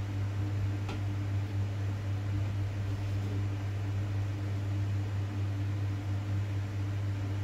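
Steady low electric hum, like a fan motor running, with a steady hiss over it; a single light clack about a second in.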